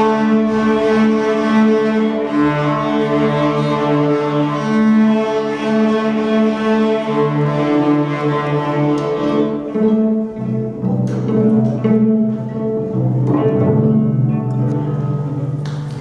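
A group of young beginner cellists bowing a simple tune together in long held notes, the pitch stepping every second or so. The notes begin suddenly and stop near the end.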